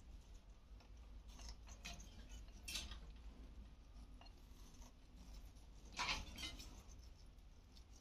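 Alexandrine parrots eating watermelon from a steel cup on a wire cage floor: faint clicks and scrapes of beaks against the cup and feet on the wire, with a few short, louder scrapes, the loudest twice, a little before the middle and again later.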